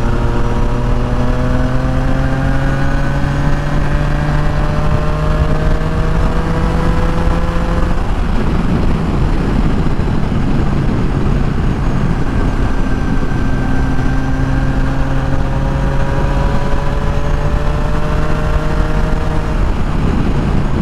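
2022 Triumph Tiger Sport 660's three-cylinder engine, with a Leo Vince slip-on exhaust, pulling under way with its pitch slowly rising. About 8 s in the engine note drops away, leaving wind and road rush. It picks up again a few seconds later and climbs once more before easing off near the end.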